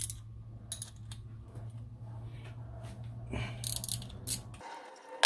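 Light metallic clicks and rattles of a brake-pipe flaring tool and pipe being handled, loudest about a second in and again near the end. Under them a steady low hum stops abruptly near the end.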